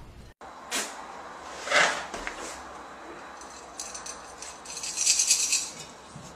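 A kitten scrambling in and out of a jar on a tiled floor: a few knocks, the loudest about two seconds in, then a couple of seconds of high scratching and rattling.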